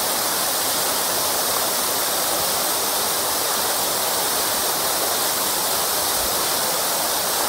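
Small waterfall: water coming out through cracks in the rock from a height and falling, a steady splashing with no let-up.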